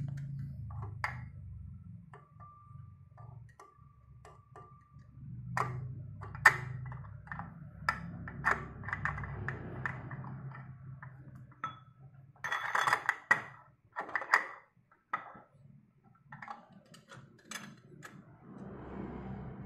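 Metal hand tools clinking and clicking against a scooter's CVT rear clutch as a clutch holder tool and socket wrench are fitted to the clutch nut: scattered sharp clinks with a denser run of clicks about two-thirds of the way in, over a low steady hum.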